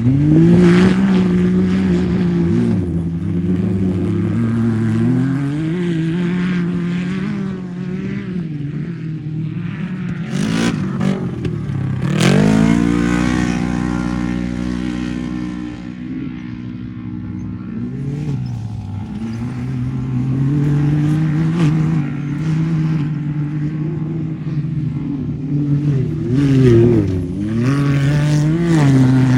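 Off-road racing UTV engine revving hard, its pitch climbing and dropping again and again as the throttle comes on and off. There are clattering knocks about halfway, then a sharp rise in revs that falls away over a few seconds.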